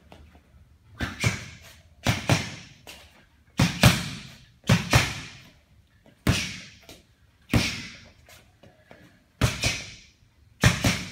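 Punches and kicks smacking into a Revgear Tombstone striking pad: about eight sharp thuds, many in quick pairs, repeating every second or so, each with a short echo trailing off.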